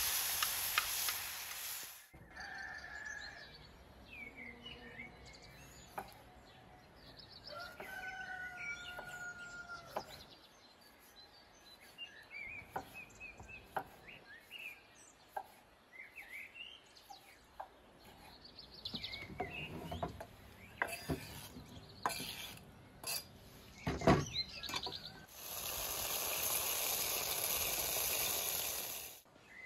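Mushrooms sizzling in a steel disc pan over a wood fire, cut off after about two seconds. Then birds chirping and a chicken calling, with scattered knocks of a knife cutting tomatoes on a wooden board. Near the end the loud sizzle of the frying mushrooms returns for about three seconds.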